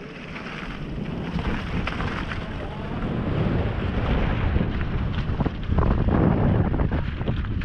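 Mountain bike ridden fast down a dirt and gravel trail: wind rumbling on the action camera's microphone, with the tyres crunching over loose gravel and the bike rattling over bumps. It grows a little louder as the speed builds.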